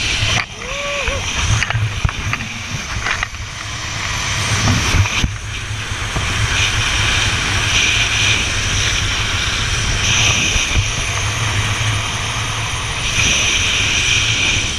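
Rush of wind over the microphone and the whir of a zipline trolley running fast down a steel cable, a steady low rumble with a hiss that swells and fades.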